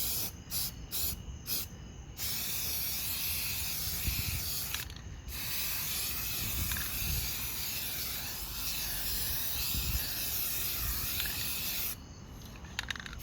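Aerosol spray can of oil-based paint spraying: a few short squirts, then long steady hisses with a brief break about five seconds in, stopping about a second before the end.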